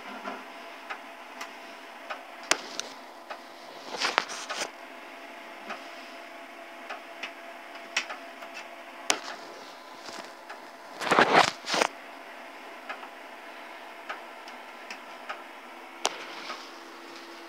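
Old PC floppy disk drive formatting a diskette: its head steps from cylinder to cylinder with sharp clicks about once a second and two louder scratchy spells, over the steady hum of the computer's fan and hard disk.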